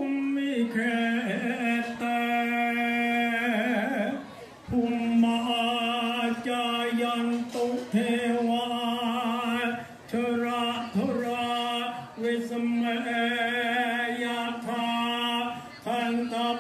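A man chanting a Brahmin invocation in long notes held on one steady pitch, sometimes wavering, with short breaks between phrases.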